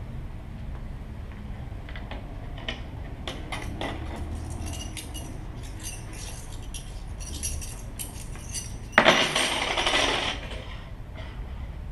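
Small metal coins clicking and clinking as they are handled, then about nine seconds in a loud rattle of coins thrown down onto a wooden table, lasting about a second and a half: coins tossed to cast an I Ching hexagram.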